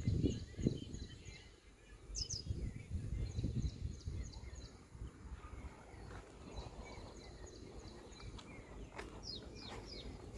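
Small birds chirping in series of short, high, falling calls, over low thuds and rumble from footsteps and phone handling, strongest in the first second.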